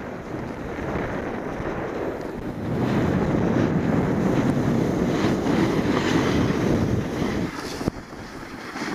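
Wind rushing over the camera's microphone while snowboarding downhill, mixed with the board sliding and scraping over packed snow. It grows louder about three seconds in and drops away briefly near the end.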